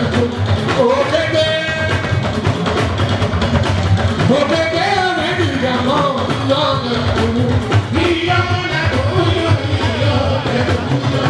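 Live fuji music played loud: a singer's melodic vocal line over a steady, driving beat from the band's drums and percussion.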